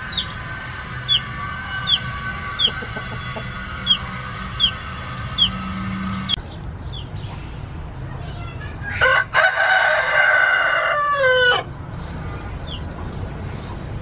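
Thai gamecock rooster crowing once, about nine seconds in: a loud crow of about two and a half seconds that drops in pitch at the end. Before it comes a run of short, high, falling chirps, a little under one a second.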